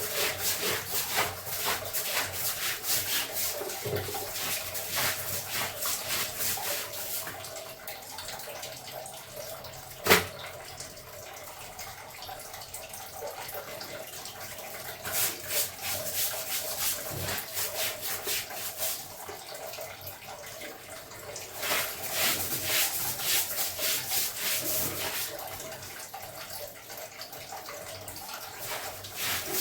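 Clothes being washed by hand in water: bursts of quick, repeated wet strokes with quieter stretches between them. A single sharp knock comes about ten seconds in.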